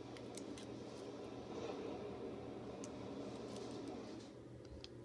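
Faint handling noises: scattered small clicks and a soft rustle as plastic toy packaging is handled.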